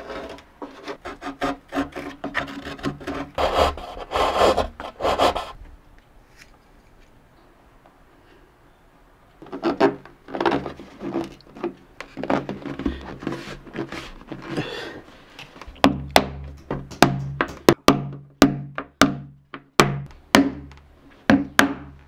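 Rubbing strokes on wood, pausing briefly, then over the last six seconds or so koto strings plucked one after another, each note ringing on.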